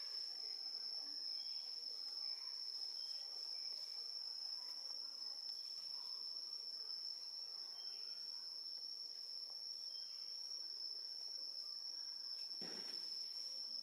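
Insects droning in one steady, unbroken high-pitched tone, with a brief noise near the end.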